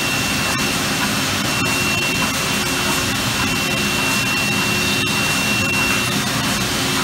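Yoder W-20 tube mill line running, its uncoiler reel paying steel strip off a spinning coil: a steady, loud industrial machine noise with a high steady whine that stops about six seconds in.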